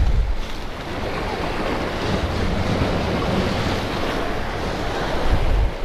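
Ocean surf washing and breaking against jetty rocks, a steady wash of noise, with wind rumbling on the microphone.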